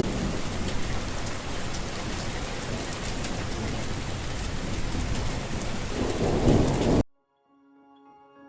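Heavy rain with a low rumble of thunder swelling near the end, cut off abruptly about seven seconds in. Soft music with held notes then fades in.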